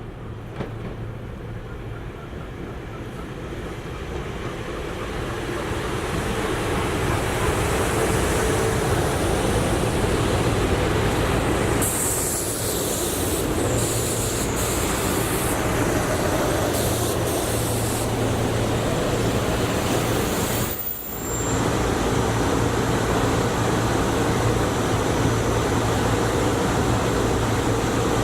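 A SEPTA Regional Rail electric train draws near and runs past: a steady rumble of steel wheels on the rails with a low electrical hum. It builds over the first several seconds, then holds loud, with brief high hissing touches about halfway through.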